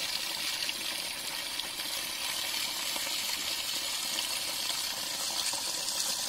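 A thin stream of water pouring off a rock ledge and splashing steadily onto stones below.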